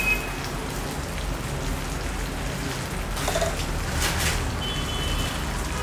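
Butter sizzling and crackling steadily in a frying pan around flour-coated chicken pieces, with a metal spoon stirring through the pan about four seconds in.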